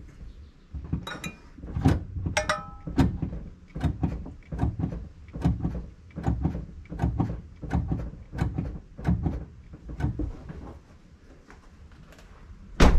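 Brake pedal of a 2013 Ford Fusion being pumped: a steady series of knocks, about two a second, for around nine seconds, pushing the caliper pistons back out against the new pads and rotor after the pads were replaced. A single louder, sharp knock near the end.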